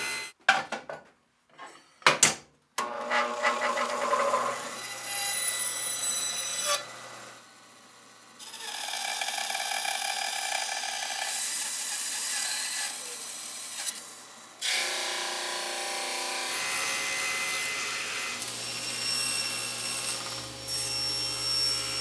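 Table saw running and cutting thermally modified ash, in several long stretches broken by short gaps. A few sharp knocks come in the first few seconds.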